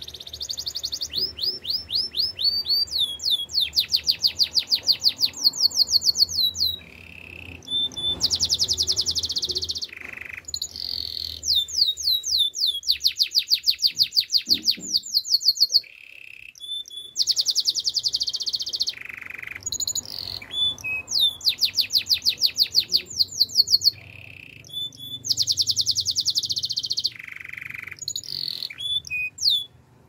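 Canary singing a long song made of rapid trills: runs of fast repeated high notes, one after another, broken by short pauses and a few single whistled notes.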